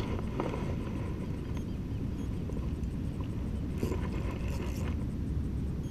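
Wind buffeting the microphone in a steady low rumble, with a few faint clicks scattered through it.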